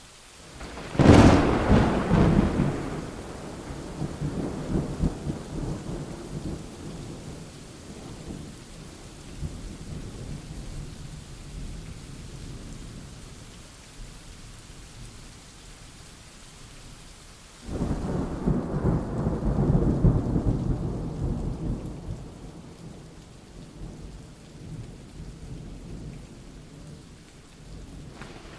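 Thunderstorm with steady rain hissing throughout. A sharp thunderclap about a second in rolls off into a rumble over several seconds. A second, lower roll of thunder starts a little past the midpoint, swells and fades.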